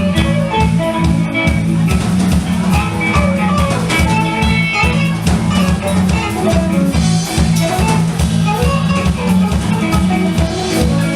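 A four-piece band playing live, an instrumental passage with guitar and drum kit over a steady beat.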